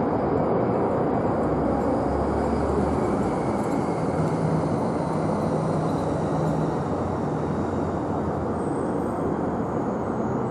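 Engine noise of a Boeing 747-8 jetliner with four GEnx-2B turbofans, flying low overhead on approach with the gear down: a steady, heavy rumble that slowly fades as the jet moves away.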